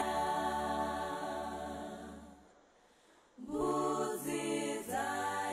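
Background music of sustained, choir-like singing in long held chords. It fades out about two and a half seconds in, and after a short gap a new passage starts about three and a half seconds in.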